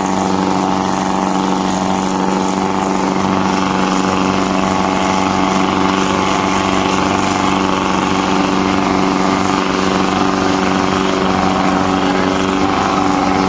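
The 45 hp turbocharged MWM diesel engine of a motorboat running steadily at constant speed, its pitch holding even throughout.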